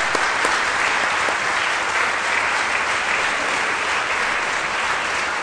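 Audience applauding steadily, a dense even clapping from a full lecture hall.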